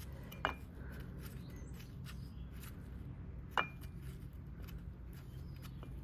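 Two sharp metallic clinks about three seconds apart, each with a brief ring: a small metal bracket and its screw knocking against the new engine mount as they are fitted by hand. A steady low hum runs underneath.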